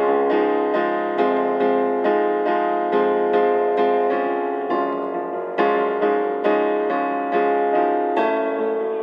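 Piano accompaniment playing an instrumental break in a slow ballad, with chords struck evenly about twice a second and no singing. A softer stretch comes around the middle, then a stronger chord.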